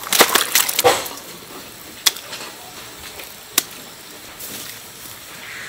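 Kitchen utensils knocking and clattering: a quick run of sharp knocks in the first second, then two single sharp clicks over a low background hiss.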